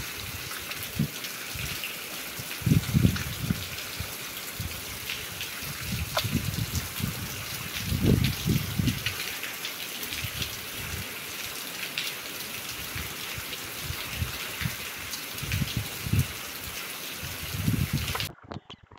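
Steady rushing hiss of heavy rain and running water, with low, irregular rumbles coming and going underneath. Near the end the sound cuts abruptly to a different, quieter recording.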